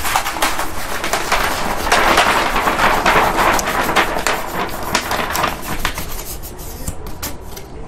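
A large sheet of stiff black chart paper being rolled up into a tube, crackling and rustling with many small crinkles; loudest in the middle, thinning to scattered crinkles near the end.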